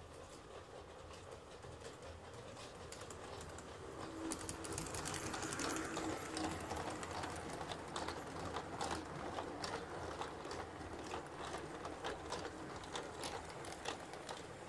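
LGB model train, a 2095 locomotive pulling ten passenger coaches, running past on brass track: a motor and gear hum with wheels clicking over rail joints. It grows louder about four seconds in as the coaches pass close, with a brief steady hum near the start of the swell, and eases off near the end.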